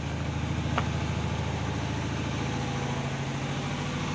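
Steady low hum of an engine running at idle, even and unbroken, with a brief tick about a second in.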